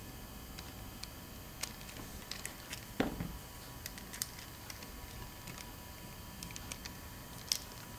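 Small scattered clicks and taps of a precision screwdriver and fingers on a floppy drive's metal chassis and head mechanism, with one louder knock about three seconds in, over a faint hiss.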